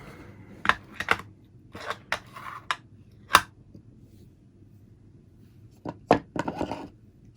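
Scattered clicks and light knocks of small tools and parts being handled on a workbench, with a short patch of scraping near the end.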